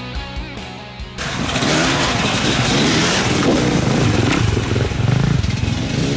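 Rock music for about the first second, then a sudden cut to several off-road dirt bike engines running and revving, their pitch wavering up and down.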